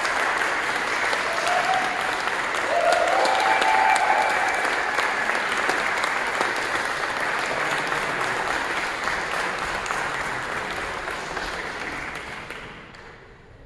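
Audience applauding, with a few brief voices calling out over it a couple of seconds in; the applause fades away near the end.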